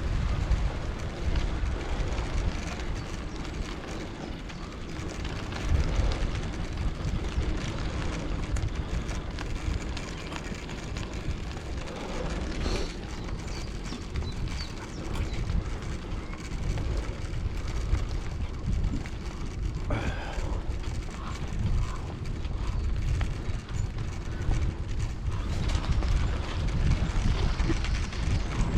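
Wind buffeting the microphone on a moving bicycle: a deep, uneven rumble that rises and falls, with the noise of the tyres rolling along the trail beneath it.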